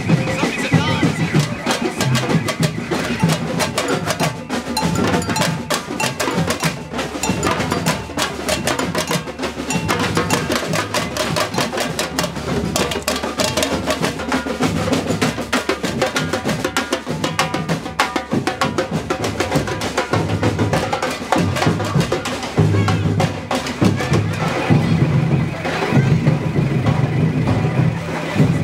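Marching drummers playing in a street procession: rapid snare drum strokes and rolls over a steady bass drum beat.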